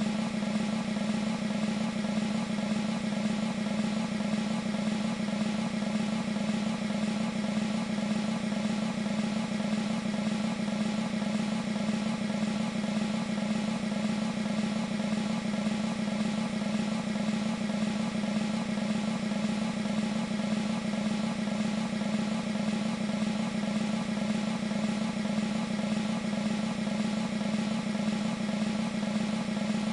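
Military snare drum roll from an E-mu Proteus 2 sound module's sampled snare, rolling on continuously at an even level without a break.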